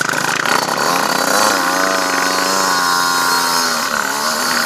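Dirt bike engine revving as the bike pulls away on the trail. Its pitch climbs about a second and a half in, eases briefly near four seconds, then climbs again.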